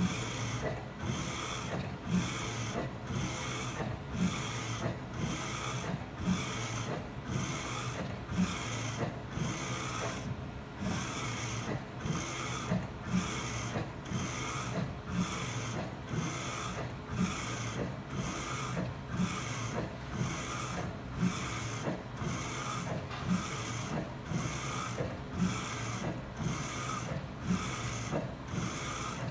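Ricoh direct-to-garment printer printing on a shirt: the print-head carriage sweeps back and forth in a regular swishing rhythm, about one pass every 0.7 seconds, each with a short click, over a steady machine hum. The rhythm pauses briefly about ten seconds in.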